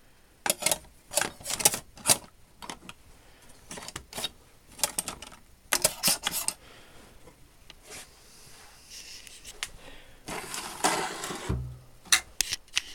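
Small metal hand tools clicking and clinking as they are picked up and set down in a tool chest drawer, a few sharp clicks at a time, with a longer scraping rattle about ten and a half seconds in.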